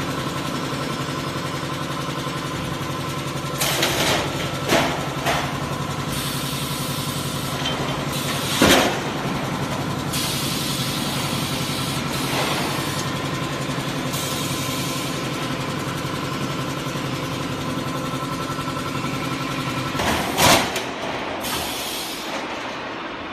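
Roof sheet roll forming machine and its automatic stacker running: a steady machine hum broken by several sharp clanks and bangs, the loudest about nine seconds in and again about twenty seconds in. After that last bang the hum stops and the sound dies down.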